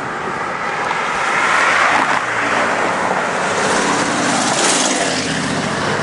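Cars driving past on the road beside the bridge walkway: a steady rush of tyres and engines that swells about two seconds in.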